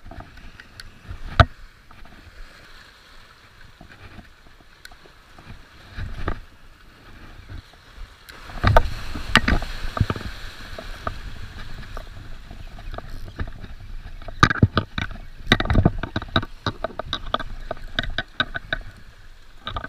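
Waves surging and splashing over jetty rocks, loudest about nine and fifteen seconds in. Mixed in are the clicks and knocks of a Penn Spinfisher VI spinning reel being cranked and handled as a hooked fish is reeled in, with a quick run of clicks near the end.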